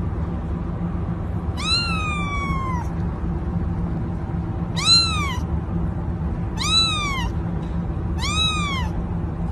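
Ginger kitten meowing four times: high-pitched calls that rise and then fall in pitch, the first one longer and the next three short, over a steady low background hum.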